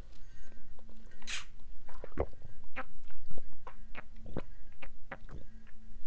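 Close-miked eating and drinking mouth sounds: a short breathy rush about a second in, then a run of wet clicks and smacks from chewing mini pizza and sipping water through a straw.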